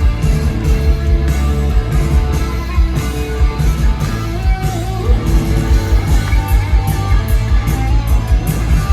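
Live punk rock band playing loud, with distorted electric guitars, bass and drums keeping a steady, driving beat.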